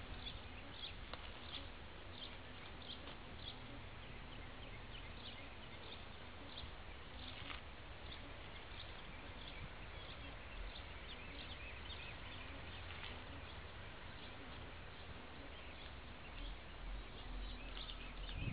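Birds chirping in short, irregular calls over a low, steady outdoor rumble.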